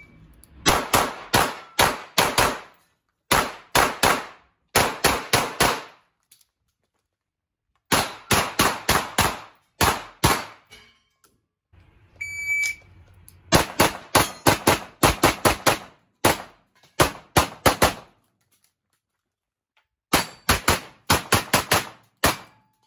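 Fast strings of gunshots in an echoing indoor range, fired in quick runs of two to six shots with pauses of a second or two between them. About twelve seconds in, a shot timer gives one short high beep as the start signal, and more fast strings of shots follow.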